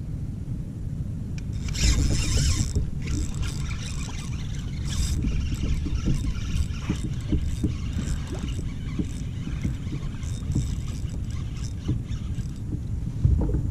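Wind rumbling on the camera microphone and water against a kayak hull while a hooked redfish is fought on rod and reel, with scattered clicks and scrapes from the tackle and a brief hissing burst about two seconds in.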